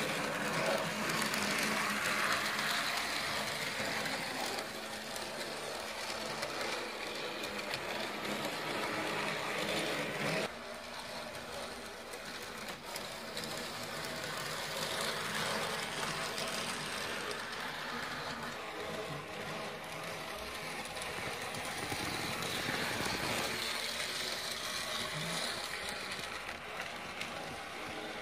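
HO-scale model trams (vintage Hamo and Mehano) running on metal track: a steady whir of small electric motors and rattle of wheels. It swells as the cars come near and fades as they move off, and drops suddenly about ten seconds in.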